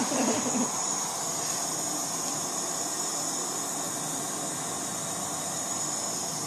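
Jetboil stove's gas burner running, a steady even hiss as it heats water in its cup.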